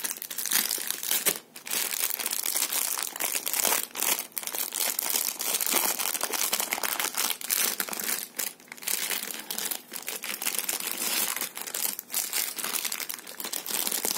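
Thin clear plastic bag crinkling steadily as hands handle and open it, with a few brief pauses.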